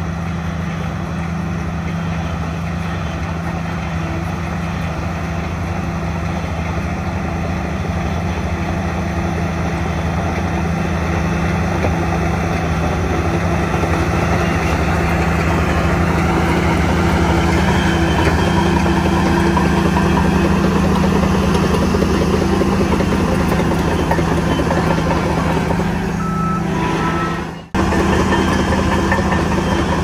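Shantui DH17 C3 crawler bulldozer's diesel engine running steadily as it pushes and grades loose soil, growing louder as the machine comes close. The sound drops out suddenly for an instant near the end, then resumes.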